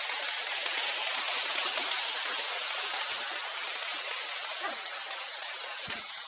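Shallow stream water rushing over rocks, a steady hiss, with two soft thumps about three and six seconds in.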